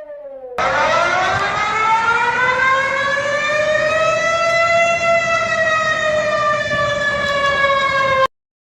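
Civil defence warning siren sounding one long wail: it starts suddenly, climbs in pitch for about four seconds, then slowly sinks, and cuts off abruptly near the end.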